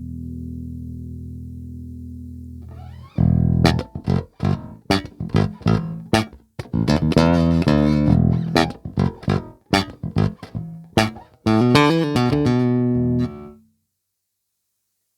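Chris Larkin Reacter B5 beech-bodied electric bass played solo: a held low note dies away over the first three seconds, then a run of sharply attacked plucked notes follows for about ten seconds and cuts off abruptly.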